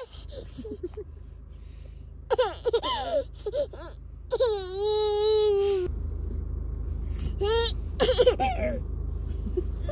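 A 14-month-old toddler whining and wailing in three drawn-out cries, the middle one held longest. She is fussing to be let out of the car.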